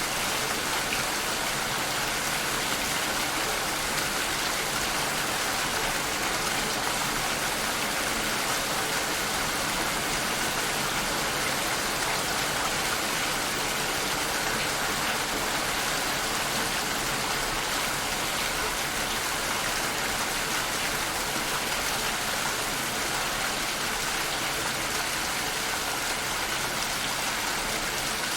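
Steady rainfall, an even hiss of many drops with no single drops standing out.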